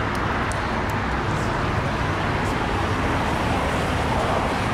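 Boeing 787-9 Dreamliner's two turbofan engines at takeoff thrust, heard from a distance as a steady jet rumble that grows slightly louder as the airliner lifts off.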